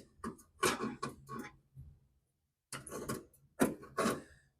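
Pliers working the edge of a sheet-metal inner-fender panel, rolling it around a clamped drill bit: short metallic clicks and scrapes in two groups, with a pause near the middle.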